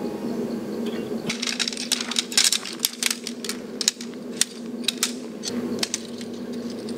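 A quick, irregular run of sharp clicks and clinks, like small hard objects knocking together. It starts about a second in and thins out near the end.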